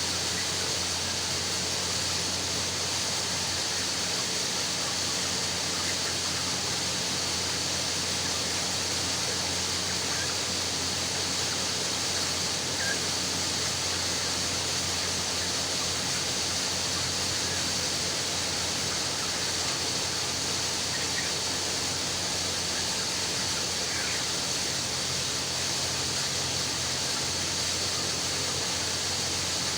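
Steady hiss with a low hum from a poultry shed, with a few faint short chick chirps scattered through it.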